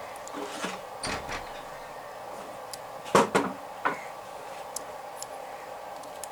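Handling noise from work on a ceiling fan's wound stator and its lead wires: a few light clicks and rustles, then a cluster of sharper knocks about three seconds in and another near four seconds, over a steady background hum.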